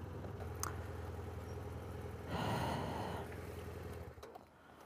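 BMW F800GS parallel-twin engine running at low speed as the motorcycle rolls into a parking space, then cut off about four seconds in. A short breathy rush of noise a little past the midpoint.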